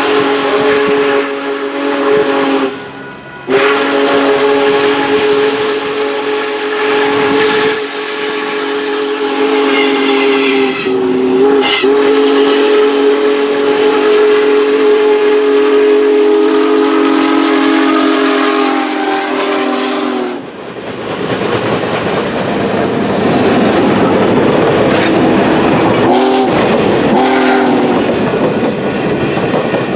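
Steam whistle of Union Pacific Big Boy 4014, a 4-8-8-4 articulated steam locomotive, blowing a long chord of several tones, with a short break about three seconds in. About twenty seconds in the whistle stops, and the rolling clatter of its passenger cars going past takes over.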